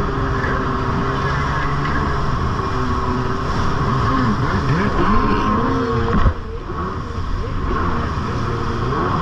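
Jet ski engine running at speed over a steady rush of water, its pitch rising and falling several times as the throttle and load change. A sharp thump comes about six seconds in, after which it is briefly quieter before the engine picks up again.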